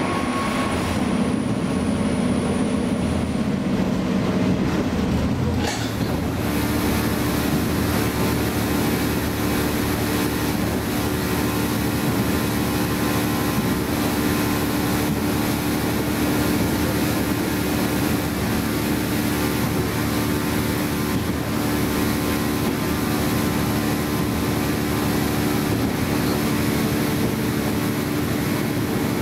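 Running sound of a KiHa 47 diesel railcar under way, heard from on board: steady diesel engine drone over wheel and rail noise. About six seconds in the engine note shifts, then runs steadily.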